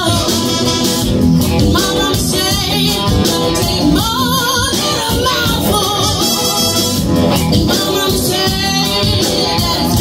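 Live funk band playing a song, with a woman singing lead over drums, bass, electric guitar, keyboard, trumpet and saxophone.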